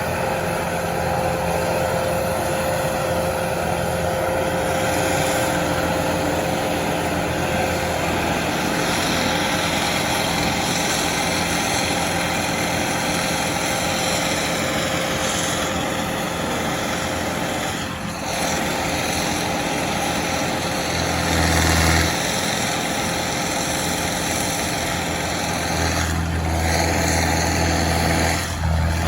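Engine of heavy landscaping equipment running steadily, with a deeper rumble swelling briefly about three-quarters of the way through and again near the end as the machine takes on load.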